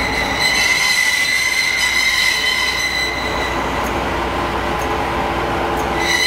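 SU42 diesel shunting locomotive creeping past at low speed with a steady, high-pitched wheel squeal. The squeal fades out a little past halfway and comes back near the end, over the low drone of the running diesel engine.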